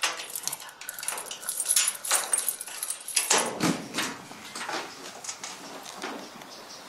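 A key jangling and clicking in the lock of an old door as it is unlocked, a quick irregular run of sharp metallic clicks and rattles, with a brief scrape about halfway through.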